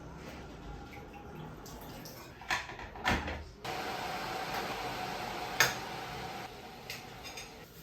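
Household handling sounds: two sharp knocks, then a steady rushing noise, like running water, for about three seconds, with a sharp click partway through.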